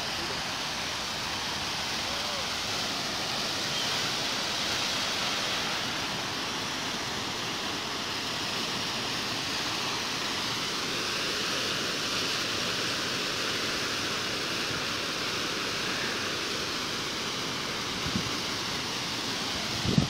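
Waterfall rushing steadily, an even roar of falling water, with a couple of brief low bumps near the end.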